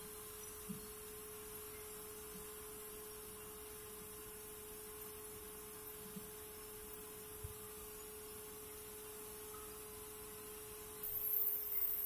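A steady single-pitched hum, with a few faint knocks; a high hiss comes in about a second before the end.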